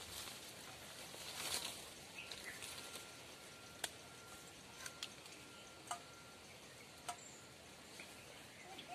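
Leaves and branches rustling as small red fruits are picked by hand from a tree, with four sharp snaps about a second apart in the second half, over a quiet outdoor background with a faint steady high tone.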